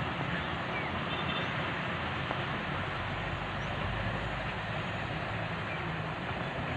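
Steady outdoor ambience: an even hiss with a low hum beneath it, unchanging throughout.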